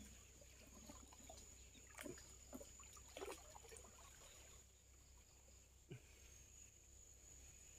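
Near silence with faint water dripping and a few small, soft splashes, as from a cast net being drawn out of the water. A faint, steady high-pitched whine runs underneath.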